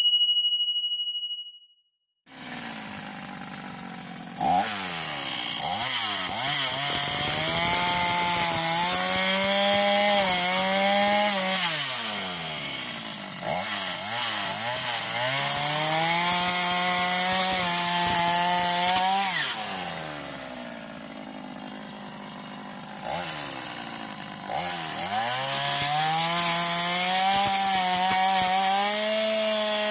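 A short bright chime, then about two seconds of silence. A two-stroke petrol brush cutter starts running, revving up to full throttle and dropping back to idle three times, around twelve, twenty and twenty-four seconds in, as it cuts grass and brush.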